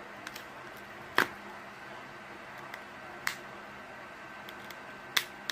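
Sharp clicks and snaps from prying the cracked, glued-on back glass off an LG G7 phone: three louder clicks about two seconds apart and a few faint ticks, over a steady hiss.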